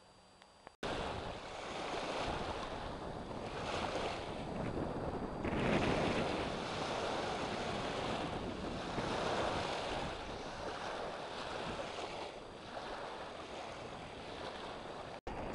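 Small waves washing onto a sandy shore, surging and ebbing every few seconds, with wind buffeting the microphone. It starts suddenly about a second in and drops out for an instant near the end.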